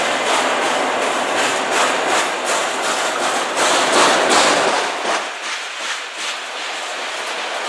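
Freight train's enclosed autorack cars rolling past: steel wheels running on the rails with a loud, steady noise and a run of repeated clacks. The deep rumble drops away about five seconds in.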